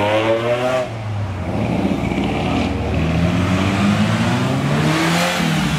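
Sports car engines accelerating past one after another, the pitch rising at the start and again through the middle; the second run-up is a Ferrari GTS's mid-mounted V8 pulling away.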